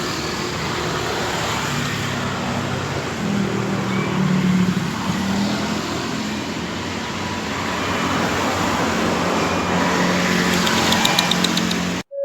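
Street traffic: vehicle engines humming and passing with steady road noise, with a quick run of high clicks just before the sound cuts off abruptly near the end.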